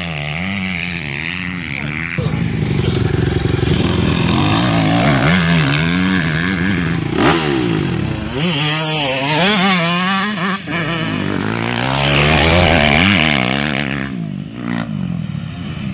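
Motocross dirt bikes revving hard on the track. Their engine pitch repeatedly climbs and drops with throttle and gear changes, and more than one bike is heard at once.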